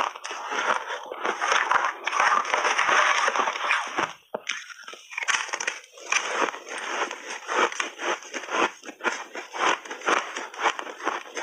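Refrozen shaved ice crunched between the teeth in big bites: dense crackling crunches, a brief lull about four seconds in, then a run of quick chewing crunches.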